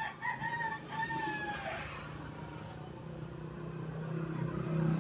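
A rooster crowing once, one long call that drops in pitch at its end. Under it, a low engine hum grows louder over the last couple of seconds.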